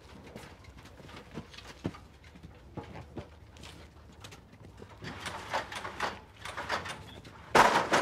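Fire hoses being run out and ladders put up: scattered knocks and clunks, then a busier stretch of clattering from about five seconds in, and a sudden loud rush of noise near the end.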